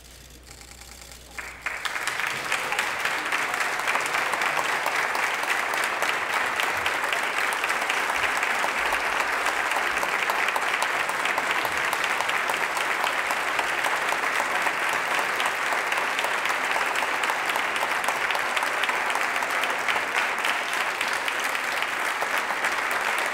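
A large audience applauding. It starts suddenly after a second and a half of near quiet and carries on steadily as sustained clapping.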